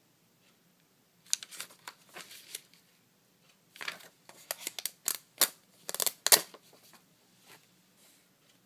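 Paper heart cutouts rustling and crinkling as they are handled and lifted off a card. The rustles come in two spells of quick, sharp handling noises, the second longer and louder.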